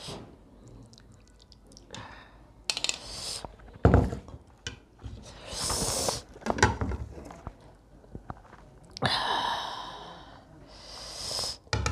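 Close-miked mukbang eating sounds: a spoon ladling fish curry onto a plate, fingers mixing rice and curry, chewing, and several loud breaths through the nose. A heavy thump comes about four seconds in.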